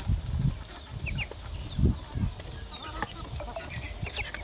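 Chickens clucking, with short high peeping calls, the clucks mostly in the second half. Low dull thuds in the first couple of seconds.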